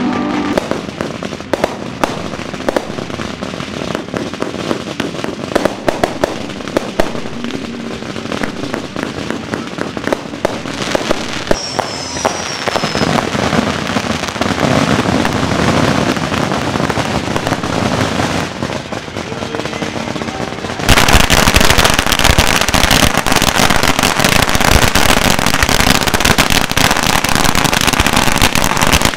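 Firecrackers and fireworks going off, with scattered sharp pops and bangs. About two-thirds of the way through, a string of firecrackers starts up, a dense, rapid, continuous crackle that is much louder than the bangs before it.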